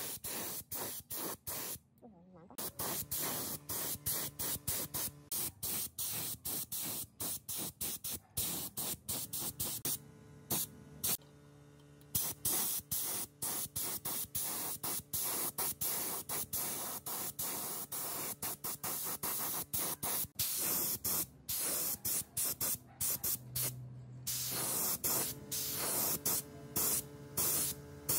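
Paint spraying onto a metal hacksaw frame: a hiss in many short bursts with brief gaps between them. A low steady hum comes in partway through.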